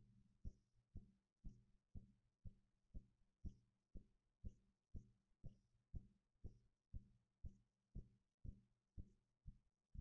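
Faint, steady low thumping about two beats a second, like a drum or heartbeat, from an unidentified source, over a faint low hum.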